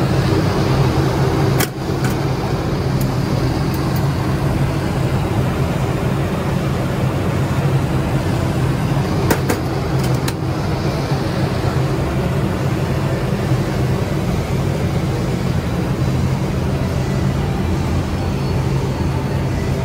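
Water-curtain paint spray booth running: a steady hum from its exhaust fans and circulation pump with a rushing noise over it. There are a few sharp clicks from the control panel's switches, one about two seconds in and two more around ten seconds in.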